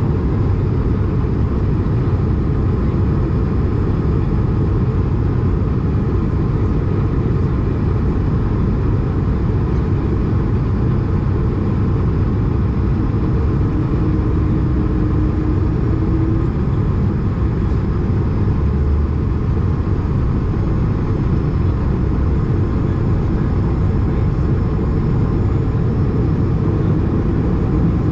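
Steady low rumble of cabin noise inside an Airbus A220 in flight, from airflow and its Pratt & Whitney PW1500G geared turbofan engines. A faint hum sits over it for about three seconds midway.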